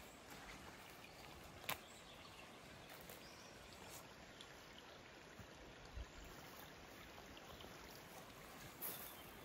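Faint, steady noisy hiss of background ambience, with one sharp click about two seconds in and a couple of softer knocks later.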